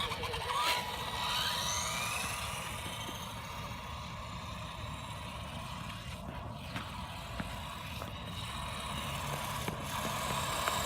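Battery-powered electric RC car's motor whining, rising sharply in pitch several times in the first couple of seconds as it speeds up, then running steadily.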